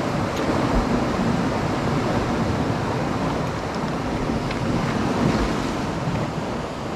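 Sea surf washing against a rocky shore: a steady rushing noise, with some low rumble from wind on the microphone.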